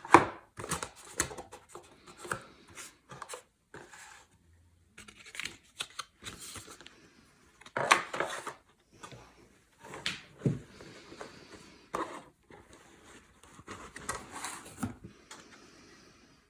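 Packaging of a guitar pedal being handled and opened: irregular rustling, scraping and clicking of cardboard and wrapping, with short pauses between bursts.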